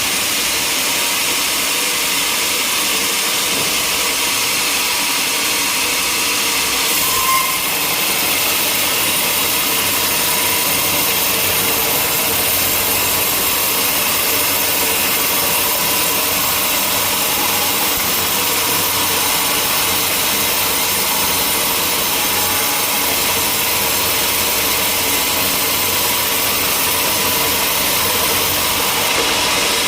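Sawmill machinery running steadily under load, a continuous loud mechanical noise with a faint hum. It turns a little brighter and harsher about seven seconds in.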